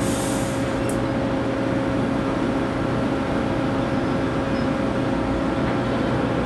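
Heavy diesel machinery running with a steady, even hum, from the crane and truck working the lift. A brief hiss in the first second.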